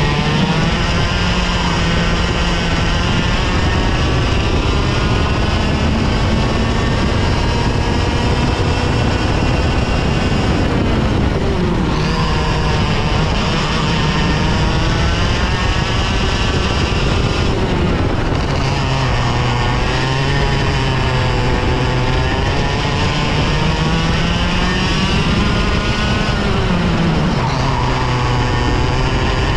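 Two-stroke TaG Cadet kart engine at racing speed, its pitch climbing steadily as it accelerates, then dropping sharply three times as the kart brakes for corners before winding up again.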